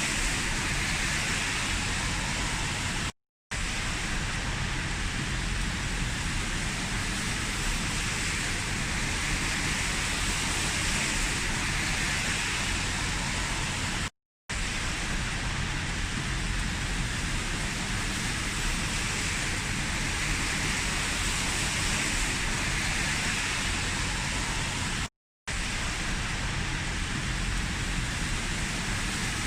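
Heavy rain falling steadily as an even, constant hiss. It cuts out to silence for a split second three times, about eleven seconds apart.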